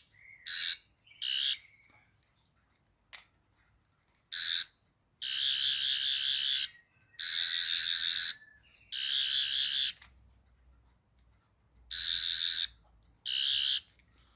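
Toy Doctor Who sonic screwdriver (Character Options) giving its high-pitched electronic warbling buzz as its button is pressed over and over: three short bursts at first, then longer ones of a second or so each, with a click about three seconds in.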